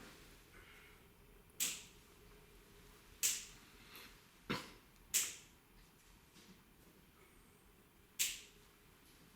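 Five sharp, short clicks at uneven intervals over a quiet room.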